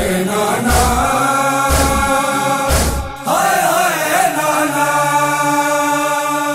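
A man singing a noha, a Punjabi Shia lament, over a held drone, with heavy low beats about once a second that stop about three seconds in. After the beats stop he holds a long, wavering note.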